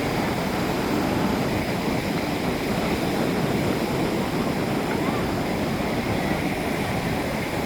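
Ocean surf washing onto the beach in a steady, continuous rush.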